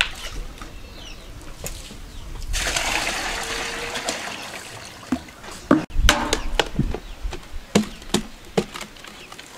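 Water poured from a plastic jerrycan into a plastic bucket, a steady splashing rush for about three seconds. After it come several sharp knocks and clunks of plastic containers being handled.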